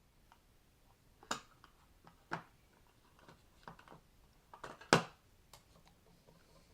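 Hands handling a small plastic wireless mouse and its batteries: scattered light clicks and knocks, a few seconds apart, with the sharpest one about five seconds in.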